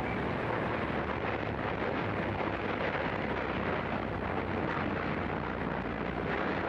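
1920s city ambience sound effect: a steady, dense wash of street background noise with a low rumble underneath and no single event standing out.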